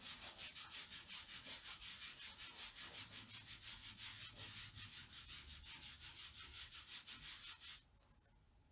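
A wet board eraser, a magic-eraser-like sponge, scrubbing chalk paste off a silk-screen transfer in circular strokes. It makes a faint, quick, rhythmic rubbing at about five strokes a second, which stops near the end.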